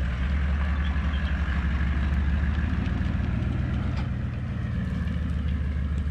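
Toyota LandCruiser 70 Series four-wheel-drive's engine running at low revs as it tows an empty boat trailer up the ramp, the note steady and easing slightly after about four seconds as it pulls away.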